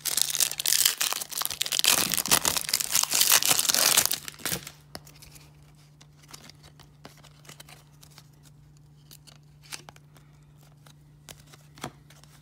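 A 1994 Topps baseball-card wax pack being torn open, its wrapper crackling and crinkling loudly for about four and a half seconds. Then only faint, scattered clicks of the cards being flipped through by hand.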